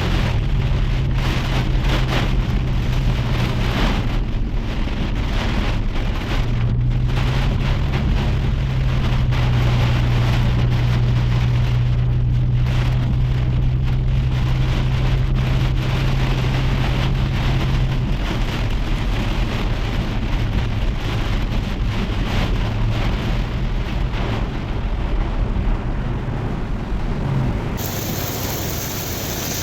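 Steady noise of heavy rain, with a steady low engine hum underneath.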